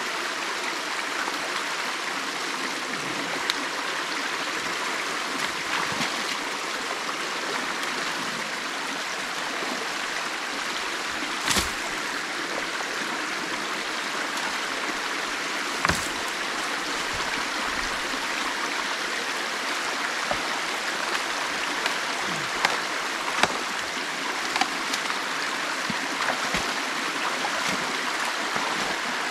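Creek water flowing steadily, a constant rushing wash, with a couple of sharp knocks about eleven and sixteen seconds in and a few lighter clicks near the end.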